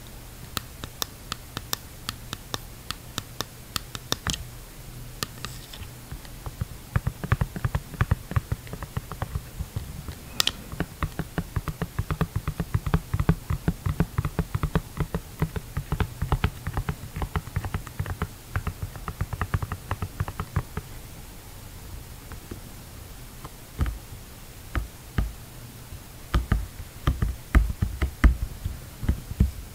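Fingernails tapping on a clear plastic-framed, silicone-skirted dive mask held close to the microphone. The taps are scattered at first, turn into a fast, dense run through the middle, then come slower and heavier with dull thumps near the end.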